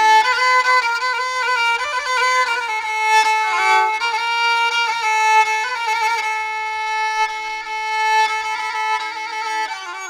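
Background music: a solo violin playing a slow melody of long held notes. It fades away at the very end.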